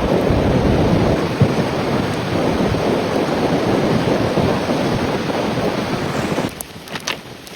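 Steady rushing storm noise, like wind-driven precipitation, that cuts off abruptly about six and a half seconds in.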